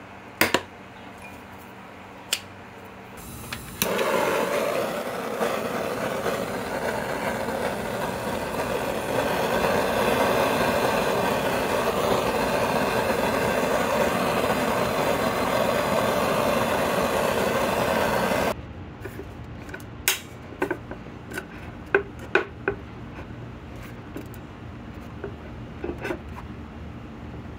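Handheld gas torch lit about four seconds in, hissing steadily as its flame heats the cast-iron body of a Stanley No. 5 hand plane around a stuck screw, then cut off suddenly after about fifteen seconds. Before and after it, sharp metal clicks and taps of locking pliers gripping the screw.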